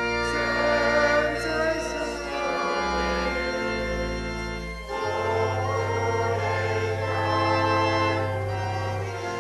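Church organ playing a hymn in long, sustained chords, with a change of chord about halfway through.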